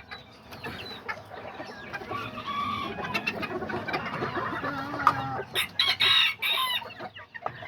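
Kikiriki bantam chickens clucking, with a rooster crowing, and a few sharp knocks.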